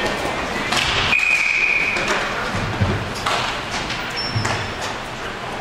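A referee's whistle blows once, one steady shrill note lasting about a second, starting about a second in. A few sharp knocks from the play come before and after it.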